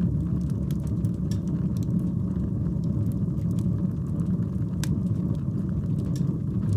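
Wood fire burning in a fireplace: a deep, steady rush of flames with a few sharp crackles, one louder pop about five seconds in.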